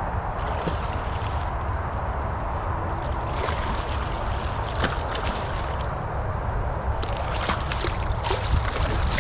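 A hooked fish thrashing and splashing at the water's surface as it is played in to the bank. The splashes come irregularly from about three seconds in and are thickest near the end, over a steady low rumble.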